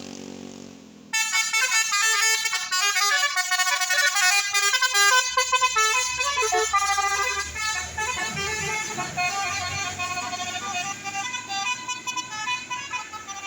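Bus 'telolet' multi-tone musical air horn playing a rapid, jingling tune as a bus passes, starting suddenly about a second in, with engine rumble underneath in the middle.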